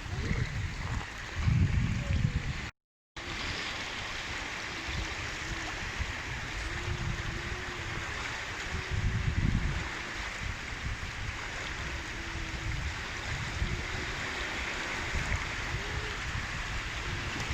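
Small waves of an alpine lake lapping and splashing in a steady wash, with low rumbles of wind on the microphone. The sound cuts out briefly about three seconds in.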